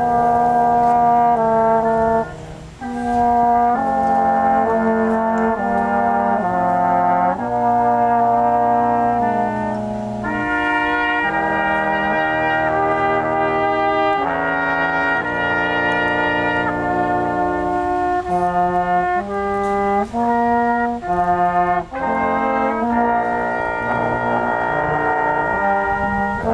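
A brass quintet playing a piece in held, sustained chords, with a brief breath between phrases about two and a half seconds in.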